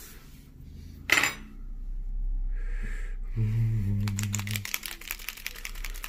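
A dropper bottle of AMMO MIG acrylic paint being shaken, its mixing ball rattling in fast, even clicks from about four seconds in, after a single sharp clink about a second in.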